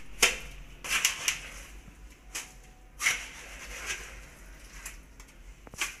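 A small trowel scooping wet cement mortar out of a plastic bucket and dropping it onto bubble-wrap sheeting in a wooden form, filling it to cast a concrete base: a string of irregular short scrapes and wet slaps.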